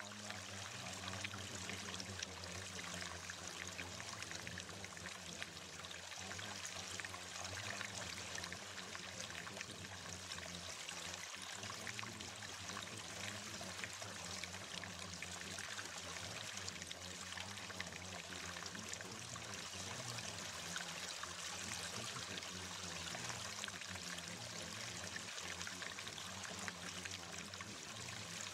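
Steady running water like a flowing stream, an even rushing sound with no breaks, over a low steady hum.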